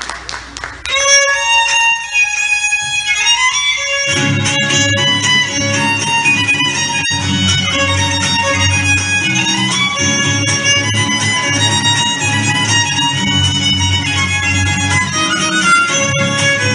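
Mexican folk dance music led by a violin. The violin plays the melody alone at first, then a low, rhythmic accompaniment comes in about four seconds in and carries on under it.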